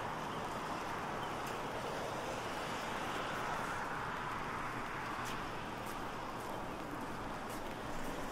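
Steady hiss of light rain and wet surroundings, with a few scattered sharp ticks of drops striking an umbrella.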